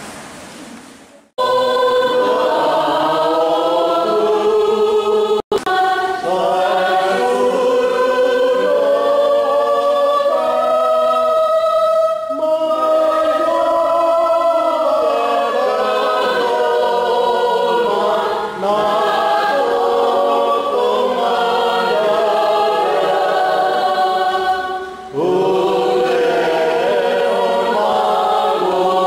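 A choir singing together in sustained, slow-moving notes, in the manner of a Christian hymn. It starts about a second in and pauses briefly near the end before carrying on.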